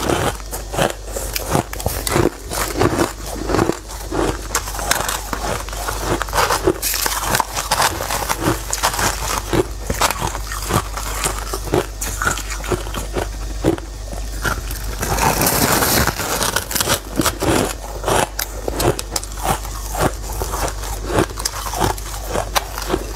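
Packed shaved ice crunching as it is bitten and chewed, a rapid, continuous run of crisp crunches and crackles, with a denser stretch of crunching about fifteen seconds in.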